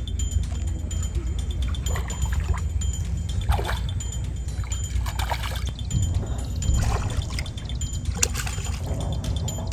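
Water splashing in short, irregular bursts as a hooked fish thrashes at the surface near the float, over a steady low rumble.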